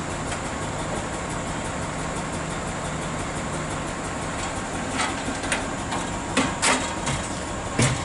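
Heavy diesel engine idling steadily, with several sharp knocks or clanks in the last three seconds.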